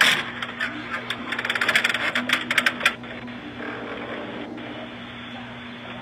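A dense run of clattering, rattling clicks for about three seconds, then only a steady low hum.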